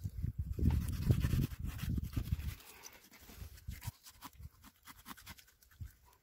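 A knife cutting and scraping along a gurnard's skin on a plastic cutting board: scattered small ticks and scrapes. For the first two and a half seconds a louder, rapid low rumble covers them.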